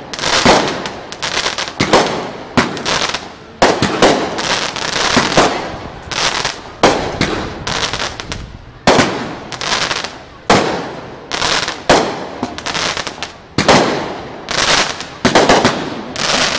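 Aerial fireworks display: shells bursting one after another, a sharp boom about once a second, each trailing off before the next.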